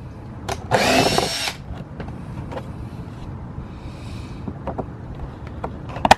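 Power drill with a step bit whirring in one short burst of under a second, then light handling clicks and a single sharp click near the end.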